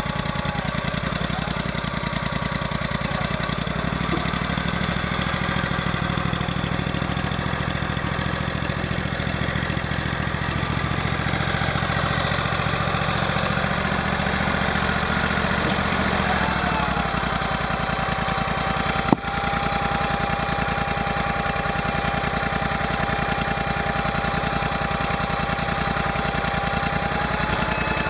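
Engine running steadily, with a steady whine coming in about two-thirds of the way through, and one sharp click partway through the whine.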